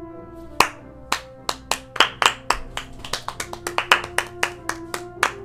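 Hands clapping in quick, uneven claps, a few a second, over background music with long held notes.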